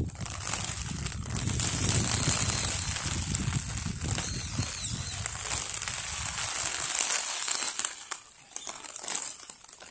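Close crinkly rustling right at the microphone, with a low rumble that fades out after about six and a half seconds.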